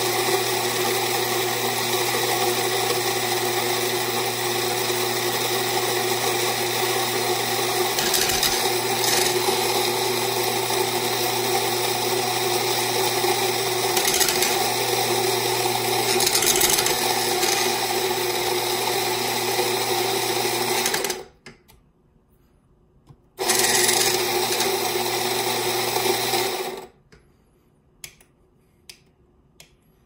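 Rancilio burr coffee grinder's motor running steadily as it grinds beans into an espresso portafilter. It stops about 21 seconds in, runs again for about three and a half seconds, and then a few light clicks follow as buttons on the add-on controller are pressed.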